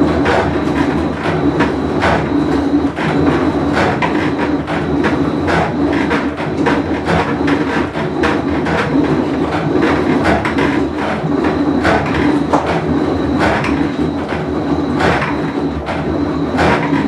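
Whirlpool Cabrio top-load washer running mid-cycle: a steady low hum under a fast, uneven clatter of knocks and rattles, the noise of a bad tub bearing.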